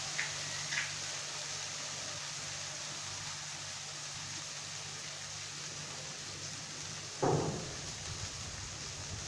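Spiced onion masala frying in oil in an aluminium kadai: a steady sizzle, with a couple of small pops about a second in. About seven seconds in there is one short, louder sound.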